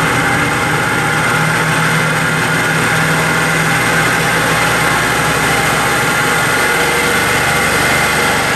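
Electric motor running steadily off a pulsed back-EMF coil circuit, with a constant low electrical hum under the motor's whir.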